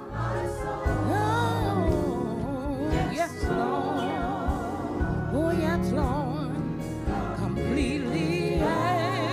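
Gospel music: a solo singer holding long, wavering notes with wide vibrato over a steady bass line.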